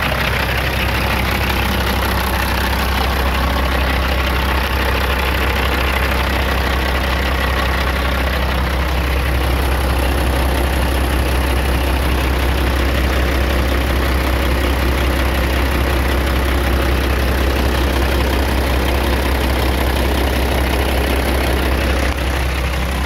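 2005 Peterbilt 379 semi truck's diesel engine idling steadily.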